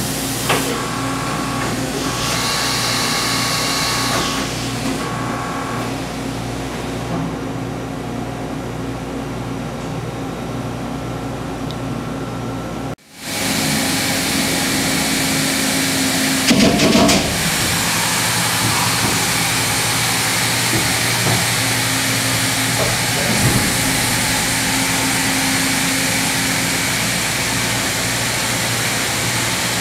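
Steady hum of running machine-shop machinery, with a few steady tones in it. It cuts out for a moment about halfway through, and a short, louder clatter comes a few seconds later.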